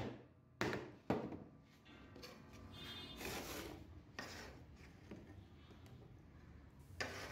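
Fresh ginger grated on a metal box grater, then scraped off a plastic cutting board into a steel bowl with a cleaver. Two sharp knocks about half a second and a second in, followed by faint scraping and rubbing.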